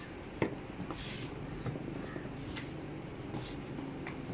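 Hands kneading sticky flour fishing-bait dough in a plastic tub: faint soft squishes and scuffs, with one sharp click about half a second in.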